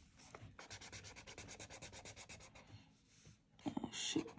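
Felt-tip marker rubbing back and forth on paper as a drawing is coloured in, in quick strokes at about eight a second. After a brief lull the rubbing comes back louder near the end.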